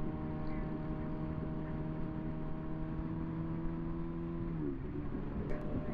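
Motorcycle engine running at a steady cruise under a constant low wind rumble; about three-quarters of the way through the engine note falls as the bike slows.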